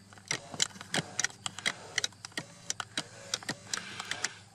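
An irregular run of light, sharp clicks and taps, about five a second, from hands handling small plastic and metal parts and tools, over a steady low electrical hum.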